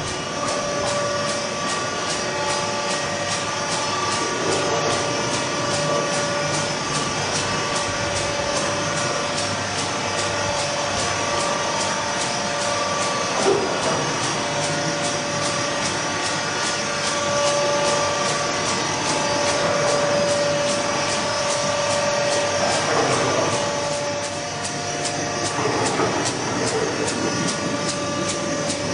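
Steady machinery noise from a pig-slurry treatment plant's pumps and motors: a constant loud hiss and hum with several held tones.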